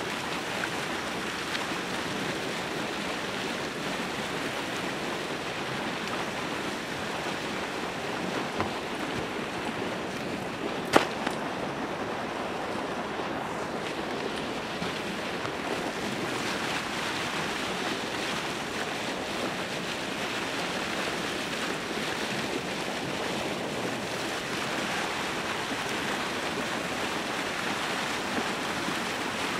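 Steady rushing and splashing of open water churning up white against the edge of the ice, with a single sharp click about eleven seconds in.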